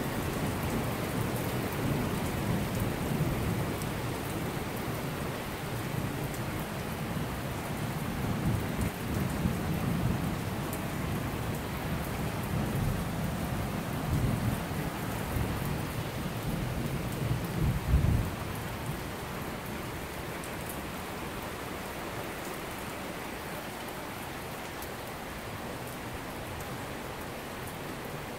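Heavy thunderstorm rain pouring steadily onto a street and parked cars, with thunder rolling and rumbling through the first two-thirds. The thunder is loudest about two-thirds of the way through, then dies away, leaving only the steady rain.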